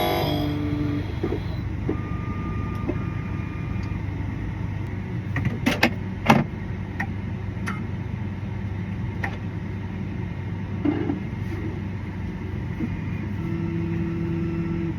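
A steady low hum, like a vehicle engine running, with scattered light clicks and two sharper clicks about six seconds in.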